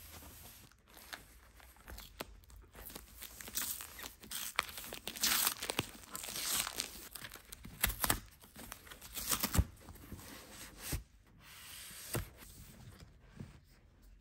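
A cardboard book mailer being torn open by hand: irregular ripping and crinkling of corrugated card with sharp snaps, loudest in the middle. Near the end, a softcover book is handled as it comes out of the box.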